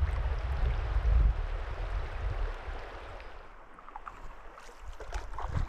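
Shallow creek water running past a canoe, fuller with a low rumble at first, fading to a quieter trickle through the middle, with a few light knocks near the end.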